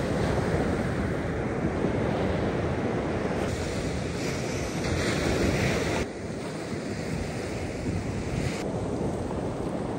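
Shore-break waves washing up a sandy beach, with wind buffeting the microphone. The tone and level of the surf change abruptly three times.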